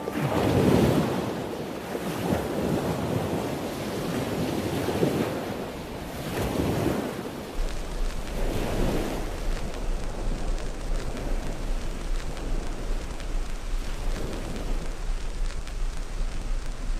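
Churning, foaming sea water washing and surging in repeated swells. A steady low rumble comes in about halfway through.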